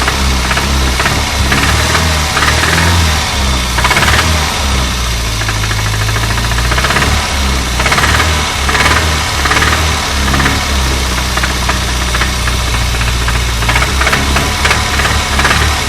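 Renault 25 engine running with a fast, regular knock over its hum; the owner cannot tell what is knocking. The engine speed swells slightly a few times.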